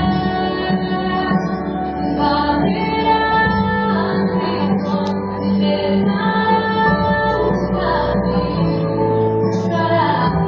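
A worship song: a woman singing in long held notes over steady instrumental backing.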